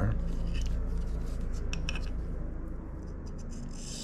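Steady low hum with a few light clicks of handling. Near the end a scratchy rubbing starts: a diamond hand lap being stroked across the carbide tip of a boring cutter to hone a small radius.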